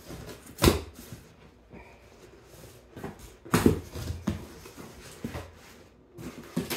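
Cardboard shipping box flaps being pulled open and the box handled, giving a series of thumps and rustles. The loudest thumps come about two-thirds of a second in and about three and a half seconds in.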